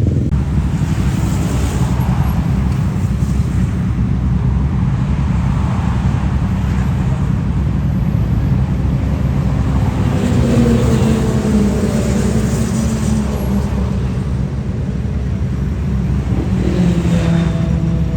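Road traffic: a steady low rumble, with one vehicle's engine passing about ten seconds in and another near the end.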